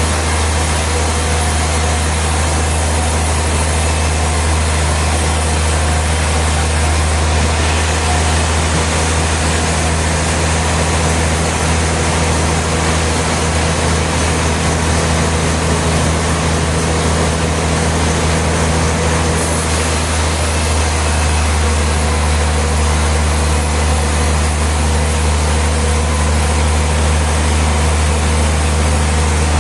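Sawmill machinery running steadily: a constant low motor hum under an even, broad hiss, with no breaks.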